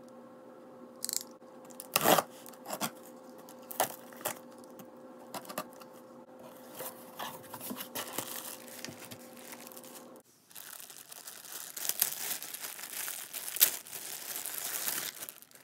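A cardboard shipping box being opened: a utility knife slitting the packing tape, then sharp cardboard rustles and knocks as the flaps are pulled back and the contents lifted out. About ten seconds in, a plastic bag crinkles and tears continuously as it is unwrapped.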